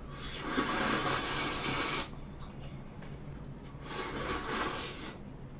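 Two long slurps of jjamppong noodles (Korean-Chinese spicy seafood noodle soup) being sucked in off a plate: the first about two seconds long, the second shorter, about four seconds in.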